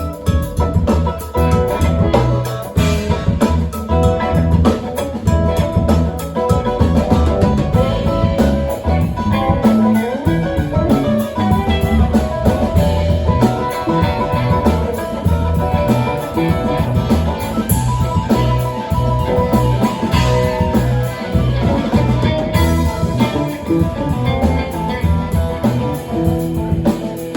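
Live band playing an instrumental break: guitar over bass and a drum kit, with no singing.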